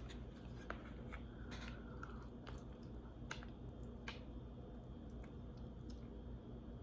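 Faint chewing of food, with scattered small wet mouth clicks about once or twice a second over a low steady hum.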